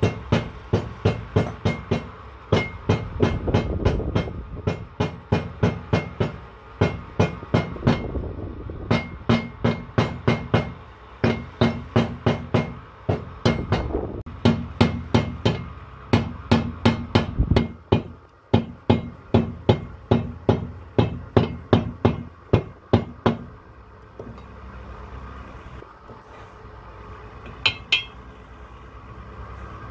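Hammer blows on the back of a steel blade set against the copper commutator of a truck starter motor armature, where the windings join it: sharp metal-on-metal strikes, about three a second. They stop about 23 seconds in, and two more strikes come near the end.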